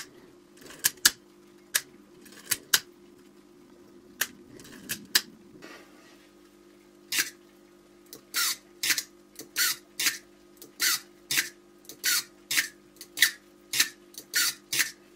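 Small metal clicks and snaps from a stripped-down Canon A-1's mechanism being worked by hand. A few scattered clicks come in the first half, then from about seven seconds a steady run of clicks, roughly two a second, as the mirror-box parts are pressed and released.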